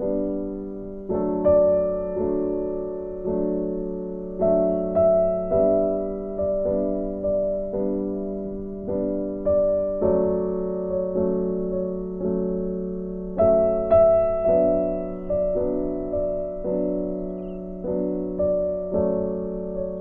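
Slow solo piano music, notes struck about once or twice a second, each ringing and fading.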